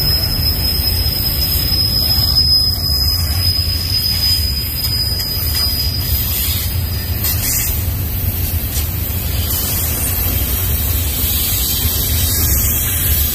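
Union Pacific double-stack intermodal train rolling past, its well cars giving a steady rumble on the rails. A thin, high-pitched wheel squeal holds until a little before halfway, then stops.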